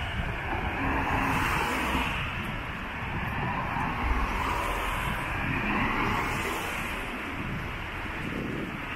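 Road traffic on a rain-wet street: cars passing one after another, their tyres hissing, swelling and fading several times.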